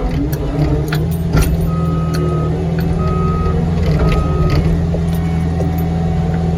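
Caterpillar 259D3 compact track loader's diesel engine running steadily under work, with its backup alarm beeping three times about a second apart while the machine reverses. A few sharp clanks come from the machine in the first second or so.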